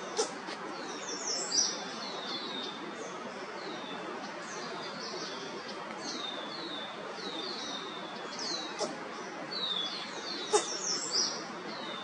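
Small birds chirping over and over: quick, high, downward-sliding chirps over a steady background hiss. A few short, sharp sounds stand out, about two seconds in and again near the end.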